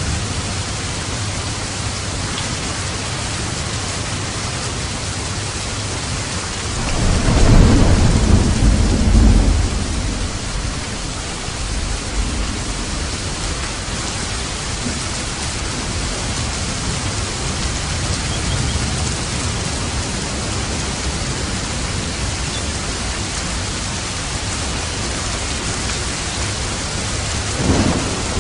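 Steady heavy rain with a roll of thunder about seven seconds in that rumbles for a few seconds and fades, and a shorter rumble near the end.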